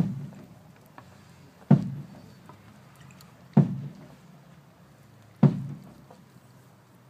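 Marching band bass drum struck four times, slow and evenly spaced nearly two seconds apart, each stroke ringing out briefly.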